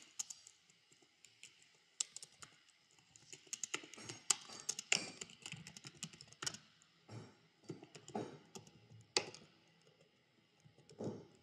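Typing on a computer keyboard: faint, irregular key clicks in uneven runs with short pauses between words.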